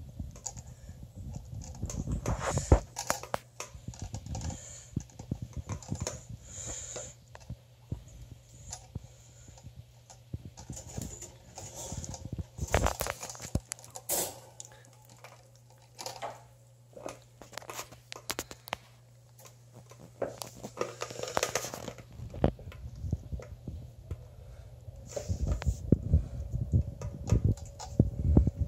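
Scattered light clicks and taps of puppies scrambling about a wire playpen on a tile floor, claws on the tiles and paws knocking the pen's wire. The tapping comes in busier clusters, the last near the end while a puppy licks at a hanging water bottle.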